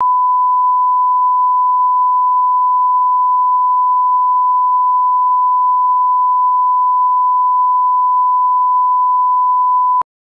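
Steady 1 kHz sine-wave test tone, the line-up reference tone that accompanies colour bars. It cuts off suddenly near the end.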